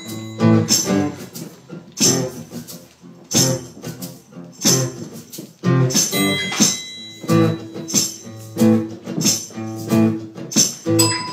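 Acoustic guitar strumming chords in a steady rhythm, with hand percussion marking the beat: an instrumental passage of an acoustic folk song.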